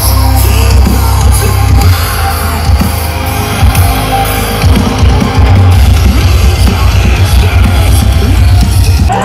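Live concert music at high volume, heard from within the crowd: a performer's vocals over pounding drums and heavy bass.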